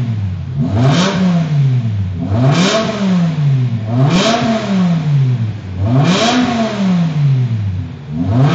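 BMW E60 M5's V10 engine blipped repeatedly through its exhaust, about four revs, each rising and falling back to idle, with another rev starting near the end.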